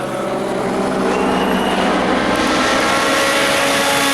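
Rally car approaching at high revs, its engine note held high and slowly rising as it grows louder.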